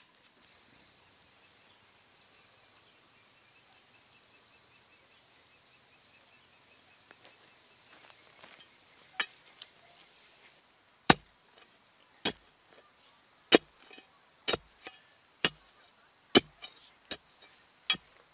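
Long iron digging bar driven into hard, dry soil again and again to loosen earth for a post hole: sharp strikes about once a second, starting about halfway through. A steady high insect drone runs underneath.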